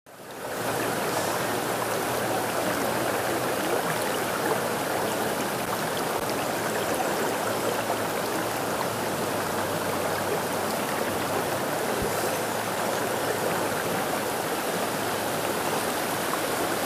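Shallow river running over rocks: a steady rush of flowing water that fades in at the very start.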